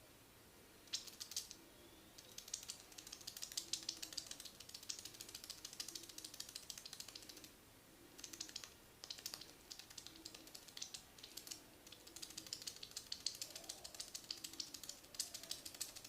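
Hair cracking: fingers working and pulling strands of hair against the scalp, giving rapid, crisp crackling clicks in runs of several seconds with short pauses between.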